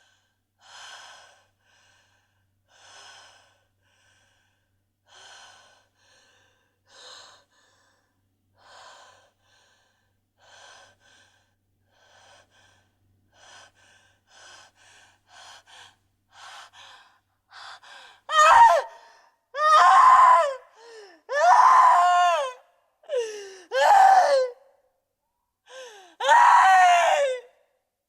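A woman in pain gasping in short, breathy sobs, about one every two seconds and coming faster, then breaking into five loud wailing cries, each sliding down in pitch.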